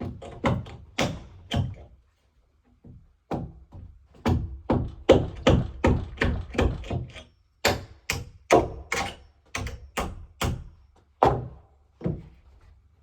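Repeated heavy blows on wood, a steady run of thunks at about two to three a second, with a short break about two seconds in.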